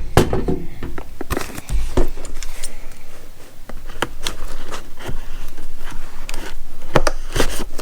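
Packaging being handled and opened: a run of scrapes, rustles and small knocks.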